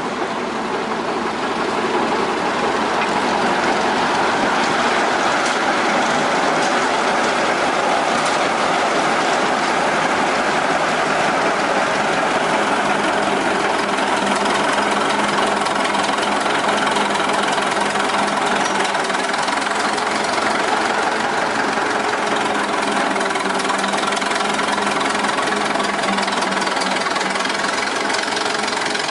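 The 1926 Twin City gasoline engine of a Northwest 105 dragline running steadily with a rod knock, picking up a little in the first second or two and then holding even.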